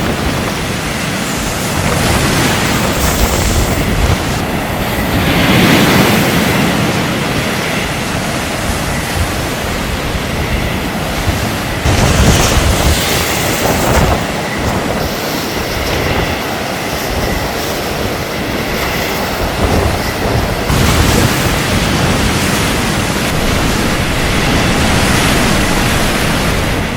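Storm surf: large waves breaking and crashing, a continuous heavy rush of water with several louder surges as bigger waves hit.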